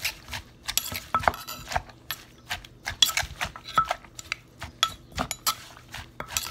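Wooden pestle pounding shredded green papaya in a clay mortar for som tam, with a metal spoon clinking against the mortar as the salad is turned. Irregular knocks and clinks come a few each second.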